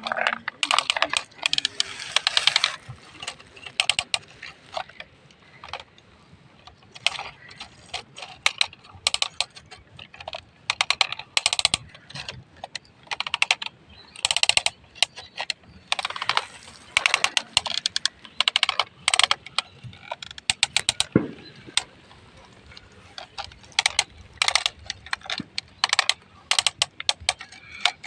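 Toy excavators digging and pushing dirt, with irregular runs of clicking, rattling and scraping from plastic parts and loose soil, broken by short pauses.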